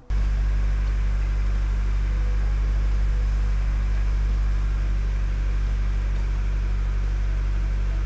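Honda Civic's four-cylinder engine idling steadily, heard from inside the cabin, cutting in and out abruptly.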